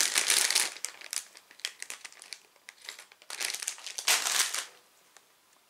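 Clear plastic bags of LEGO parts crinkling as they are handled, first a continuous rustle, then scattered crackles and two short bursts, dying away near the end.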